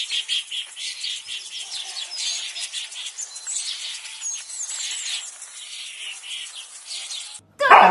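Small birds chirping and twittering in a dense, high-pitched chatter of many short calls.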